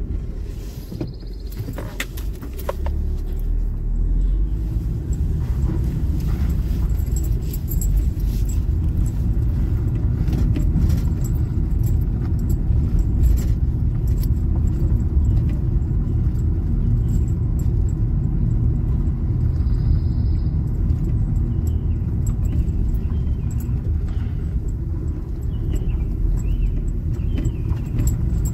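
Cabin sound of a Ram ProMaster City van driving: a steady low rumble of engine and tyres on the road, with a light metallic jingling and small rattles throughout.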